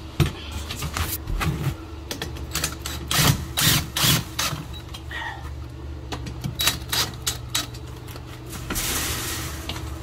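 DeWalt cordless drill driving the screws of a steel security screen door frame home, in short bursts with sharp clicks and knocks, and one longer run about nine seconds in.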